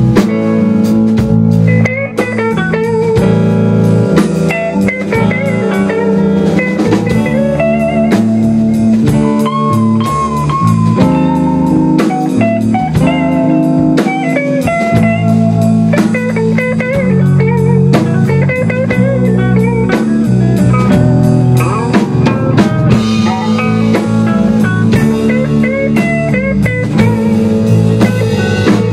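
A band playing live blues-rock with no singing: a Tama drum kit, a bass guitar and an electric guitar. The guitar plays a lead with bent, wavering notes over a steady bass line and drums.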